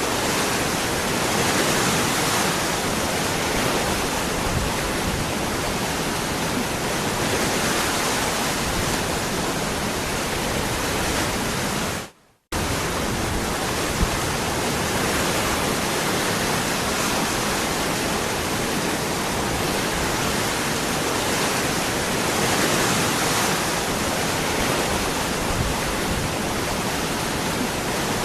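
Waterfall water rushing in a steady, even roar of noise. It cuts out completely for a split second about twelve seconds in, then resumes at once.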